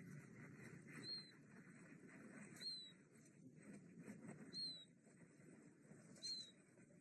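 Faint, short, high animal chirps, four of them, each dropping slightly in pitch, coming every second and a half to two seconds over low background noise.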